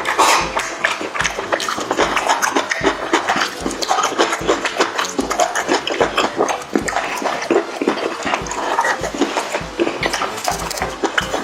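Close-miked mukbang eating sounds: chewing and wet lip smacking on spicy chicken and chicken feet, a steady run of irregular clicks and smacks several times a second.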